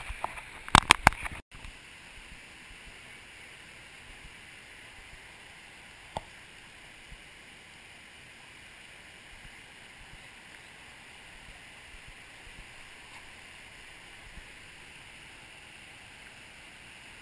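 Steady rush of a stream and small waterfall pouring into a rock pool. A quick cluster of loud knocks comes about a second in, and a single click near six seconds.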